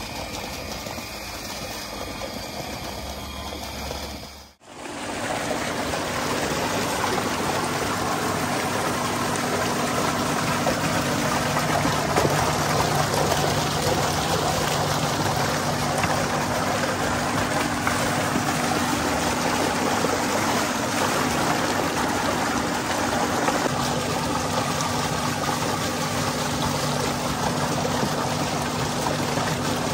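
Water pouring steadily from a pump's outlet pipe: first a solar pump's PVC pipe spilling onto grass, then, after a brief break about five seconds in, a louder gush from a pipe splashing into a concrete water tank, with a low steady hum beneath it.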